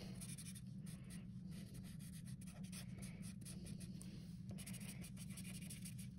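Sharpie marker drawing on paper: faint, quick scratchy strokes of the felt tip, one after another at an irregular pace.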